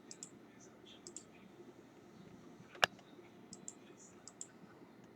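Scattered light clicks and ticks of small-object handling, with one sharp, louder click just under three seconds in.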